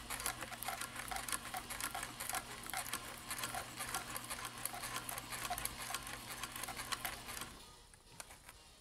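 Janome Combi DX 502 running on its serger (overlock) side: a steady motor hum under rapid clicking from the needle and loopers as it stitches a rolled hem through two layers of heavy, felt-like fabric. The machine stops near the end.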